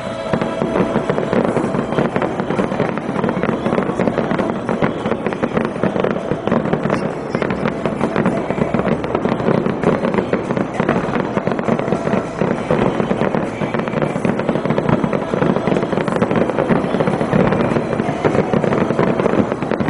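Aerial fireworks going off in a dense, continuous barrage of bursts and crackles, with no pause, as in the heavy stretch of a fireworks display.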